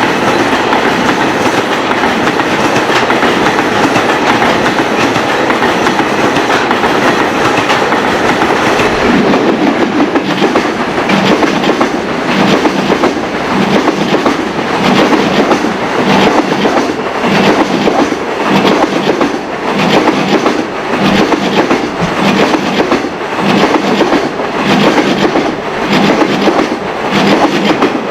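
A train passing close by, its wheels running over rail joints. For the first nine seconds the passing noise is dense and even. After that it settles into a regular clickety-clack, about one beat a second.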